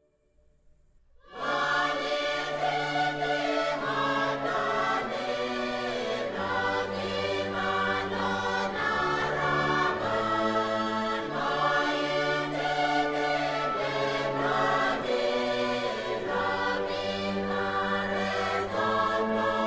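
Background music: slow, sustained chords, choir-like, over held low notes, changing every second or two and coming in about a second in.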